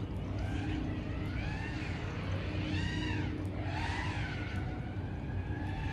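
FPV freestyle quadcopter's brushless motors whining, with the pitch rising and falling several times as the throttle is worked through manoeuvres, over a steady low hum.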